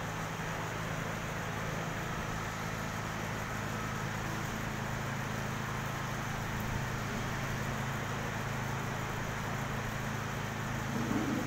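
Steady low hum with an even hiss over it, the background noise of a large hall. A man's voice starts near the end.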